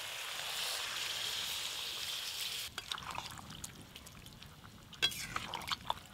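Water pouring from a steel mug into a steel karai of jackfruit curry, a steady splashing hiss that stops a little under three seconds in. Then a metal spatula scrapes and clicks against the karai as the curry is stirred, with a few sharper knocks near the end.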